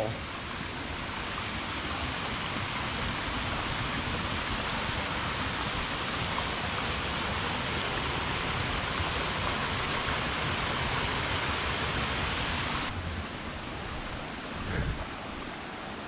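A waterfall rushing steadily as it pours over the rock edge. About 13 seconds in, the sound turns suddenly duller and a little quieter.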